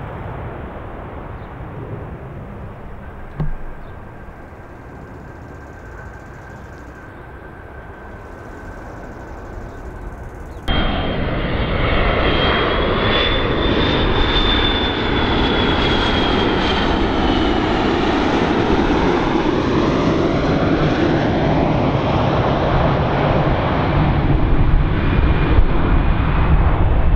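A jet airliner passing close on its landing approach. Fading engine noise gives way, after a sudden cut about ten seconds in, to loud, steady jet engine noise with a high whine that rises and then falls as the plane goes by.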